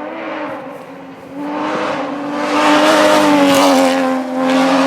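Porsche 996 GT3 rally car's flat-six engine at high revs, growing loud as the car comes up the stage. The engine note holds fairly steady, eases briefly about four seconds in, then comes back loud.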